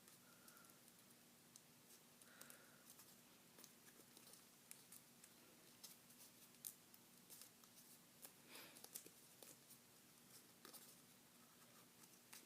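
Faint crackling of paper being folded and pressed by hand, with scattered soft clicks over a faint steady hum.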